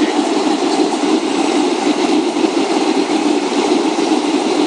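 Steady cabin rumble inside a Boeing 757, the jet's engines and airframe noise heard through the fuselage.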